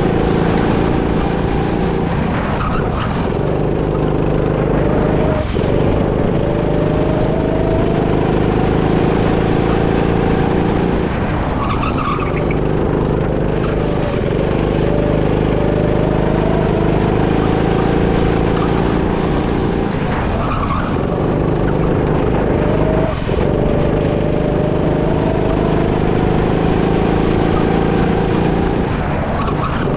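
Rental go-kart engine from the driver's seat, its pitch climbing along each straight and falling off into each corner every few seconds, with tyres briefly squealing through some turns.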